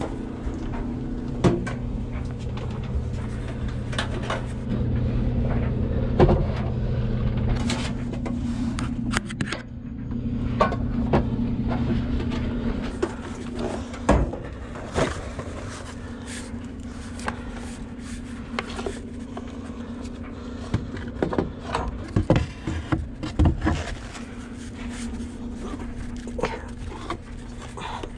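Irregular knocks, clicks and scrapes of a new bathroom exhaust fan and its parts being handled, over a steady low hum.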